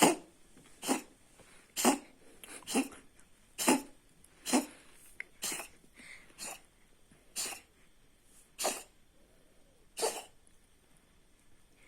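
Kitten coughing: about eleven short, sharp coughs, roughly one a second.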